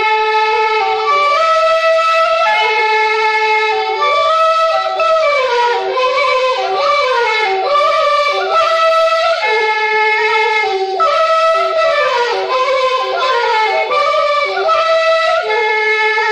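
Music: a single wind instrument plays an ornamented melody, its notes sliding up and down into one another.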